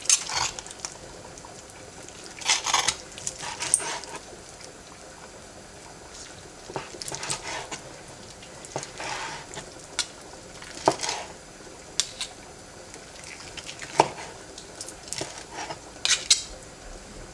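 Kitchen knife cutting cooked tendons into pieces on a plastic cutting board: irregular sharp knocks of the blade against the board, mixed with short scraping swishes.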